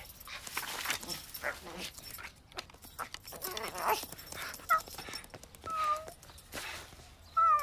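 Puppy whimpering, a few short high whines in the second half after softer noise.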